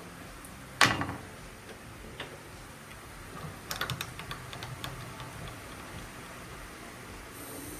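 One sharp metallic knock with a short ring about a second in, likely a hammer tap on the putter clamped in the milling vise, then a scatter of light metal clicks and ticks from handling the vise and tools.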